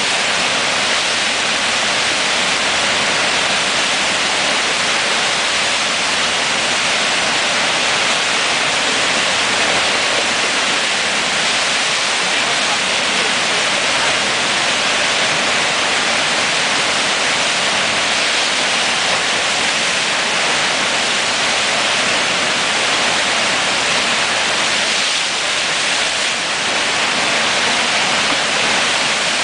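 Fast river water rushing over the Eisbach's standing surf wave: a steady, unbroken hiss of churning whitewater.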